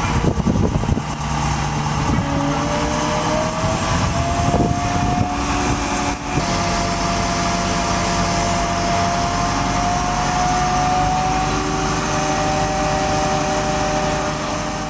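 Mobile crane's diesel engine and hydraulics running steadily under load while hoisting a patrol boat, with a whine that rises slowly in pitch over the first few seconds and then holds.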